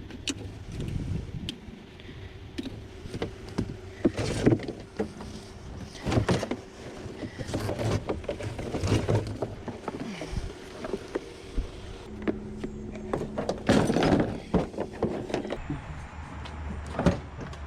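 Knocks, bumps and clatter of a salvaged pump and other curbside junk being handled and moved, over a steady low hum.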